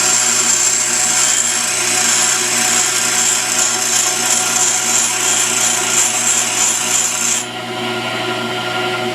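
High-speed steel lathe tool bit held against a running pedestal grinder wheel: a steady, high-pitched grinding hiss over the motor's hum. The grinding stops about seven seconds in while the grinder keeps running.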